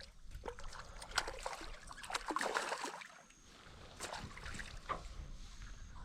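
Faint water splashing and dripping around a small boat, with scattered light knocks and clicks.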